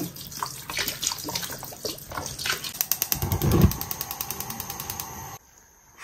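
Cooking wine poured into a wide pan of water holding an ostrich leg, splashing into the water. Partway through comes a fast run of even ticks with a low thump, and the sound cuts off a little before the end.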